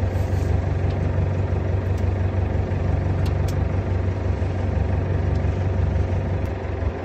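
Fishing boat's engine idling with a steady low rumble.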